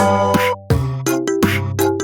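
Upbeat background music with a steady beat, keyboard notes and drums.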